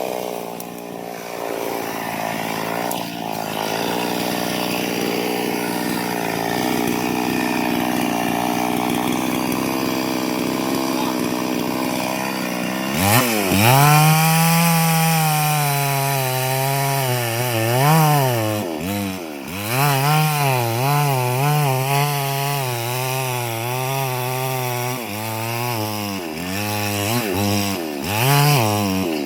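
Chainsaw engine running. About halfway through it revs up high, and its pitch repeatedly sags and recovers: the engine bogging under load as the chain bites into wood, with the throttle being worked.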